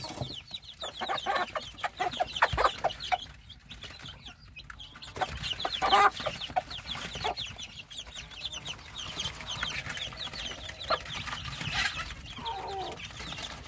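Native Korean chicks peeping continuously in many short high chirps as they scramble for cooked rice, with a few lower clucks from the mother hen.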